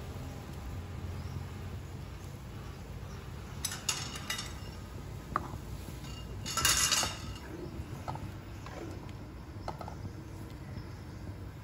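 Metal ladle clinking and scraping against the side of a stainless-steel wok while stirring prawns in boiling broth, with a few clinks about four seconds in and a louder clatter a few seconds later, over a steady low rumble.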